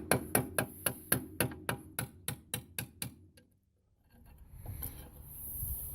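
Sharp clicks at about four a second, one after another, fading and stopping about three seconds in, from hand-tool work on a truck's front brake parts. After a short pause there is a soft rushing noise.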